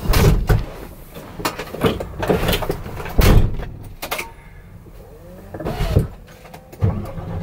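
Knocks, clicks and clatter inside a truck cab over a low rumble, with a brief whine that rises and falls in pitch about six seconds in.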